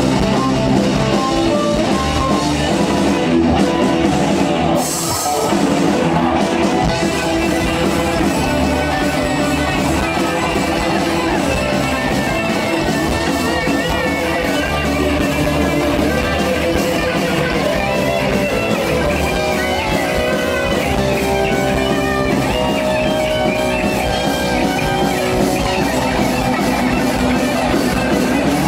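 Live rock band playing on stage: electric guitars and bass guitar over a drum kit.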